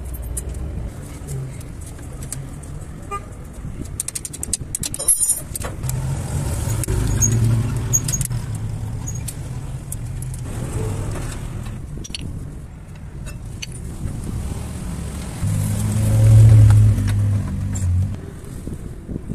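Motor vehicle engine running nearby with a steady low hum that swells louder twice, most strongly near the end, with a quick cluster of small clicks about four to five seconds in.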